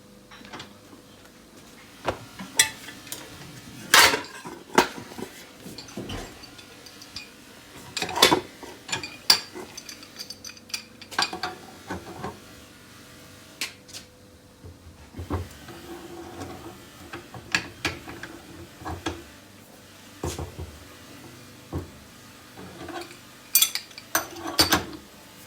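Irregular metallic clinks and knocks of metal parts and tools being handled and set down on a workbench, about a dozen sharp strikes with short pauses between them.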